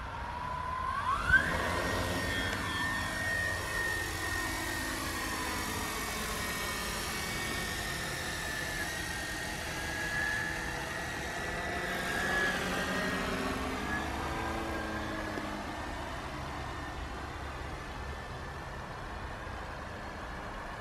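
A 3D-printed quadcopter drone's electric motors and propellers spin up with a sharply rising whine about a second in as it lifts off, with a brief sharp spike at that moment. It then holds a steady high-pitched whine that swells as it flies overhead and eases off as it moves away.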